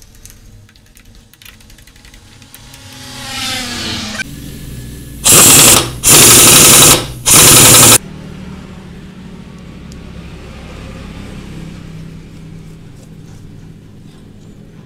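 A power tool gives three loud bursts, the middle one the longest, during reassembly of a motorcycle engine's clutch side. Faint clicks of hand work come before them, and a steady low hum follows.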